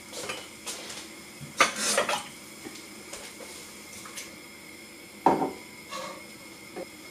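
Kitchenware clattering: a short cluster of clinks and knocks about a second and a half in, then one sharp knock about five seconds in and a lighter one soon after. A little water is being poured from a small cup into a saucepan of onions, which is then stirred with a wooden spoon.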